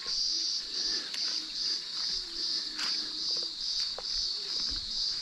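Insect chorus in the summer bush: a high, steady drone pulsing about three times a second.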